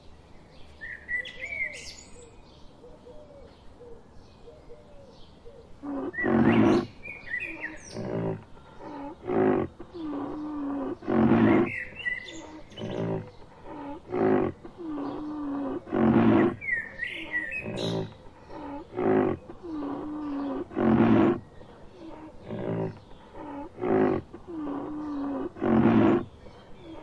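Birds chirping over a quiet background, then from about six seconds in a series of loud, deep rhinoceros calls with a lower drawn-out moan between them, the same group of calls repeating about every five seconds.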